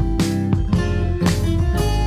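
Background music with a strummed guitar playing chords in a steady rhythm, about two strums a second.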